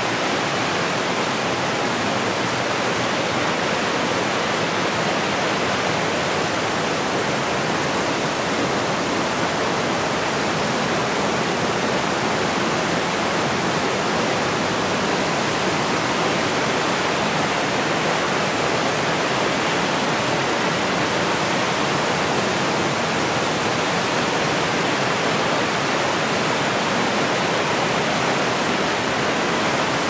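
Waterfall cascading over rock ledges: a steady rush of falling water.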